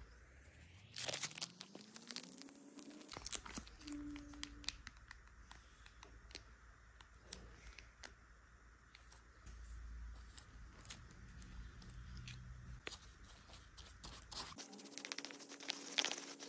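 Faint tearing and crinkling of plastic hair-relaxer packets being opened and handled, with scattered small clicks and scraping as the relaxer cream is squeezed into a plastic tint bowl and stirred with a brush.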